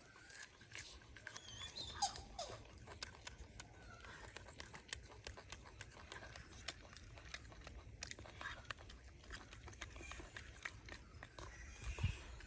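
A small animal's brief squeaking call about two seconds in, over a quiet run of small clicks and crunches, with a soft thump near the end.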